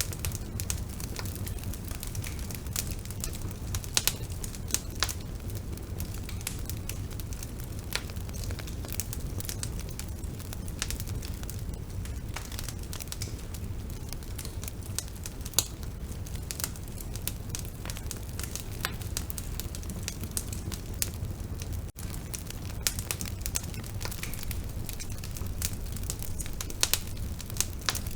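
Bonfire burning: a steady low rumble of the flames with frequent, irregular crackles and sharp pops. There is a momentary drop-out about three-quarters of the way through.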